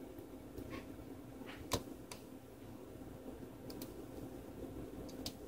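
A few small sharp clicks and taps as a plastic spudger pries at the connectors and parts of a smartphone's main board, one louder click just under two seconds in, over a steady faint hum.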